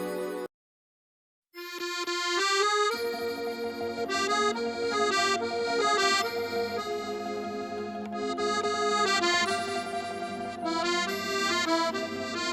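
Accordion playing a song's instrumental introduction. After about a second of dead silence, chords come in about a second and a half in, and a melody over held chords follows from about three seconds.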